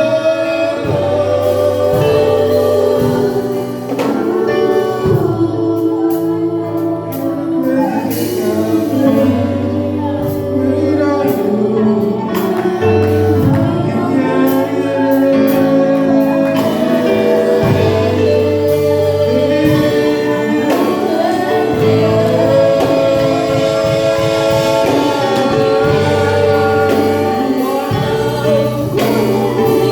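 Gospel worship song: a choir singing together over instrumental accompaniment with a steady bass line.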